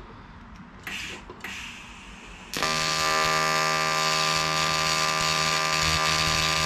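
AC TIG welding arc on aluminium, tack-welding a mounting tab in place: a loud, steady electric buzz that starts about two and a half seconds in and holds.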